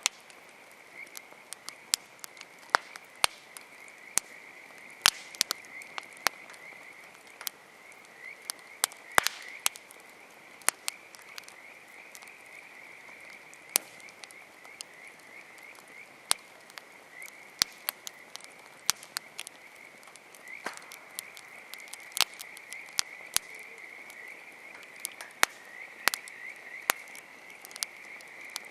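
Wood campfire crackling, with many sharp, irregular pops, over a continuous chorus of frogs calling in rapid repeated trills.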